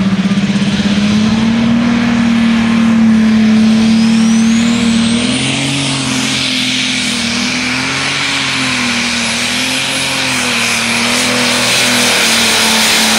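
Modified pulling tractor's engine running at full power while it drags the weight-transfer sled down the track: a loud, steady deep engine note that wavers in pitch, with a high whine that climbs about four seconds in and then holds.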